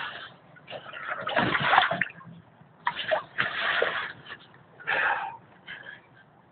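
Water sloshing and splashing inside the flooded tube of a rubber hip-wader, in about four bursts with short quieter gaps between.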